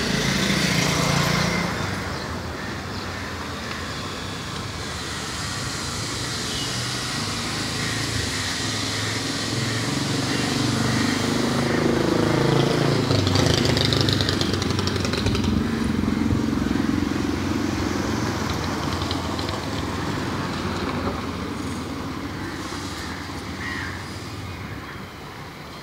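Street traffic: a motor vehicle engine running close by, its pitch shifting, louder around the middle and fading near the end.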